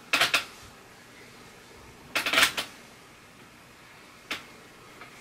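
A hand rubbing lotion into bare skin on the shoulder: a few short swishing strokes, the loudest a little after two seconds in, and a brief sharp one near the end.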